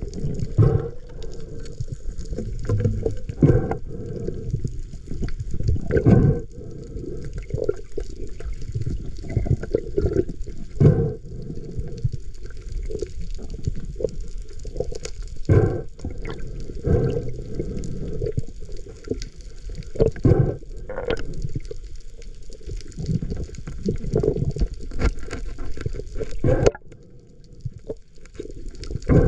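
Muffled water sounds through a camera's waterproof housing: a rumble of moving water with irregular surges and knocks, going quieter near the end.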